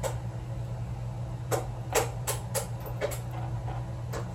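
Sharp metal clicks and taps, about six of them from about a second and a half in, as a homemade pin follower is worked against an American 1100 padlock's core and keeps catching, which the lockpicker puts down to a lip left on its unsanded sides. A steady low hum runs underneath.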